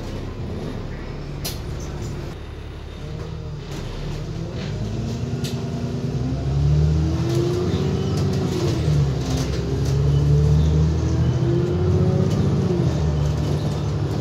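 Alexander Dennis Enviro400 double-decker bus heard from inside the cab area: the engine runs quietly while the bus stands at a red light, with a few light rattles. About five seconds in it pulls away, and the engine gets louder, its note rising and dropping back several times as the automatic gearbox changes up.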